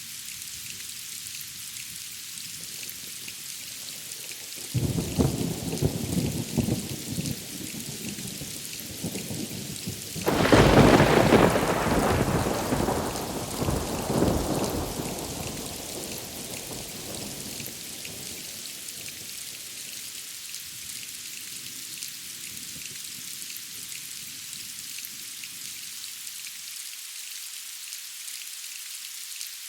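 Steady rain hiss with thunder: a rolling rumble starts about five seconds in, then a louder thunderclap about ten seconds in rumbles away over several seconds.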